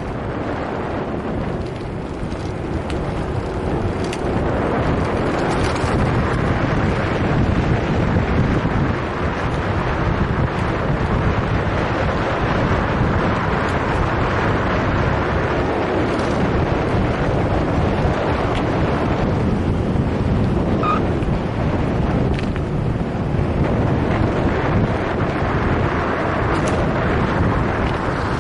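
Steady wind rush buffeting the microphone of a camera on a moving bicycle.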